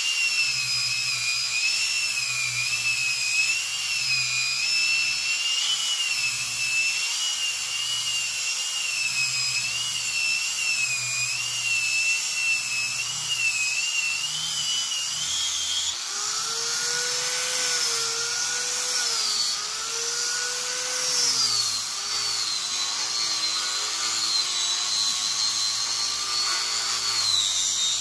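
Handheld power sander with a disc sanding jujube wood, running with a high whine that wavers in pitch as it is pressed and moved over the surface. About sixteen seconds in the whine shifts to a lower, different set of tones.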